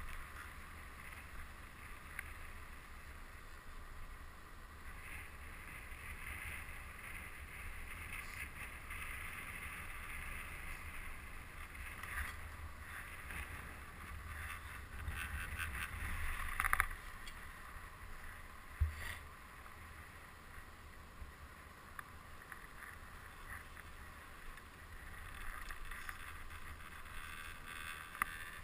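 Muffled wind and low rumble of a chairlift ride, with two sharp knocks about two seconds apart a little past the middle.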